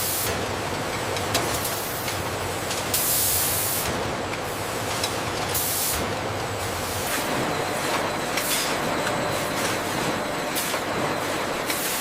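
Steady machinery noise with short bursts of hissing, like air being released: one lasting about a second roughly three seconds in, another around the middle and one near the end.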